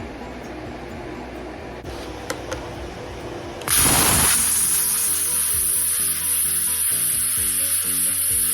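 A plasma cutter starts up about four seconds in with a sudden loud, high hiss and keeps running as it gouges off old welds on steel plate. Before it starts there is a steady mechanical hum.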